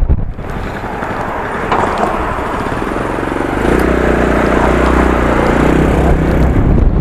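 Honda Fusion scooter's single-cylinder engine running while being ridden, with wind rushing over the microphone; the engine note steadies into a clear hum about halfway through.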